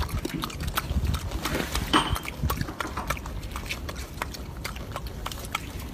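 Golden snub-nosed monkey chewing pieces of orange: irregular soft, wet clicks and smacks close by.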